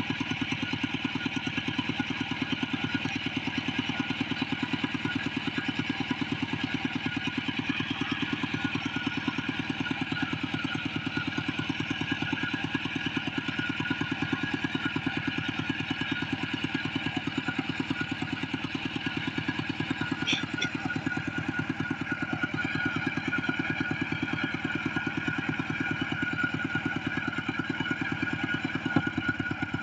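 Single-cylinder diesel engine of a two-wheel walking tractor running steadily, with even, rapid firing pulses. A couple of faint metallic clicks come about two-thirds of the way through.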